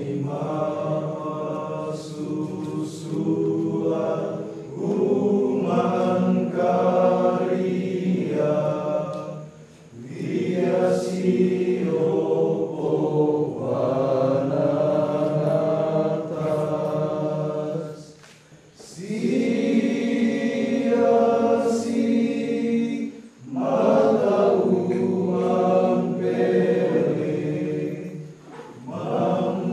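Voices chanting a Minahasa ritual song in long held phrases, breaking off briefly every five seconds or so.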